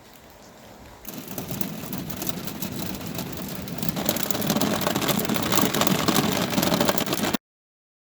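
Rain suddenly getting heavier about a second in and building into a downpour, a dense rush of drops hitting a surface, which cuts off abruptly near the end.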